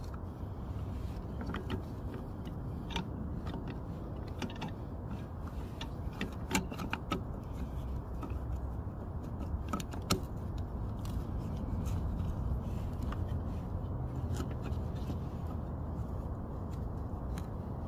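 Scattered small plastic clicks and handling noises as an LED headlight bulb is seated in its plastic headlight housing and its wiring connector is worked, over a steady low background rumble.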